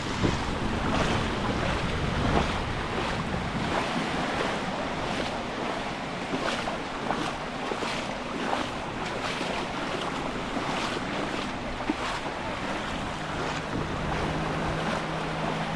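Waves washing onto the beach, with wind buffeting the microphone. A faint, steady low hum comes in during the last few seconds.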